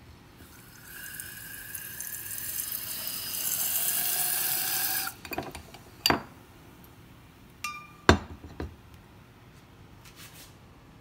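Nitrous-oxide-charged cold brew coffee jetting from a whipped cream dispenser's nozzle into a glass: a hissing spray for about five seconds, rising slightly in pitch as the glass fills, then cutting off suddenly. A few sharp knocks and a short glassy clink follow, the loudest moments.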